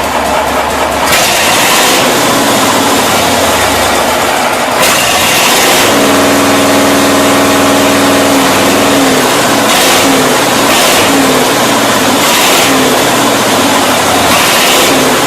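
A large engine running loud and unevenly during a cold start, with several short noisy bursts over the running.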